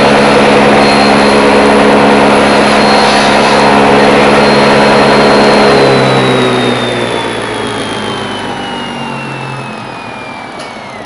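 Table saw running at full speed with a steady high whine while the first cut is made, then switched off about six seconds in, its blade spinning down with a slowly falling whine. A light knock just before the end.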